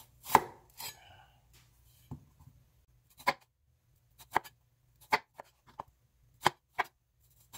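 Kitchen knife cutting down through burro banana peel and flesh and knocking on a wooden cutting board: about ten short, sharp strokes spaced roughly half a second to a second apart, the loudest one just after the start. He is scoring the peel along its ridges so the skin will come away when boiled.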